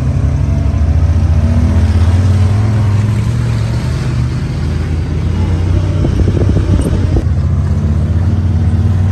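Honda Talon 1000 side-by-side's parallel-twin engine running as it drives, the pitch rising a little then easing off. A stretch of knocking and rattling comes about six to seven seconds in.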